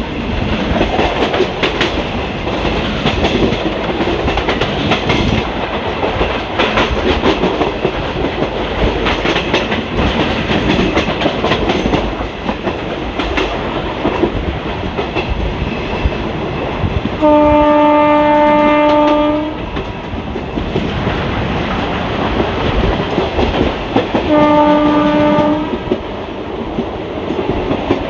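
Passenger coach running at speed, wheels clattering over rail joints with a steady clickety-clack. About two-thirds of the way through, a train horn sounds: one long steady blast of about two seconds, then a shorter blast about five seconds later.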